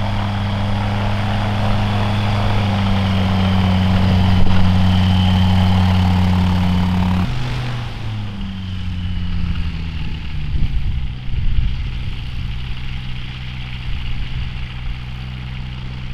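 Turbocharged Rotax 915iS four-cylinder engine and propeller of a Just Aircraft SuperSTOL running steadily on the ground. About seven seconds in the sound drops abruptly to a quieter, lower engine note that falls further in pitch and settles to a steady low run.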